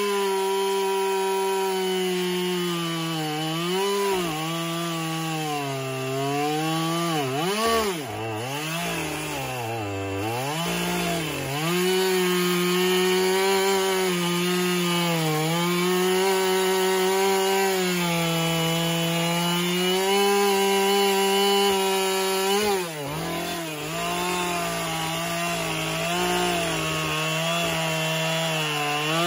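Husqvarna two-stroke chainsaw running hard as it carves into a log, its engine note sagging again and again as the chain bites into the wood and climbing back when it clears, with the deepest drops about a third of the way in and again near three-quarters through.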